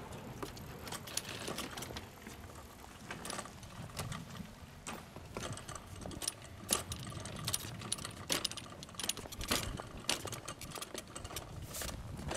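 Wheeled pet cart rolling over pavement and the rails of a level crossing: a low rumble of the wheels with irregular clicking and rattling of the frame, more frequent in the second half.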